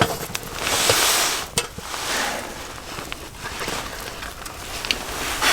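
Handling noise from a hangō mess tin being checked and opened over a campfire: a rustling hiss about a second in, then scattered sharp clicks and ticks.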